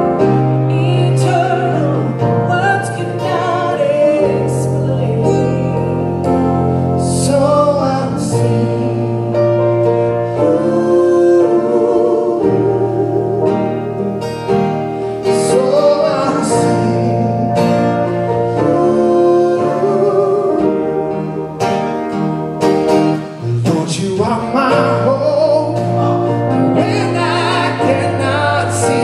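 Live worship band playing a slow song with singing, voices over keyboard and drums, with occasional cymbal crashes.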